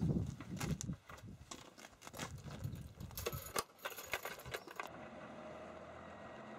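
Metallic clicks, clinks and knocks of a PTO transmission shaft being handled and pushed onto the tractor's splined PTO shaft, over the first three and a half seconds.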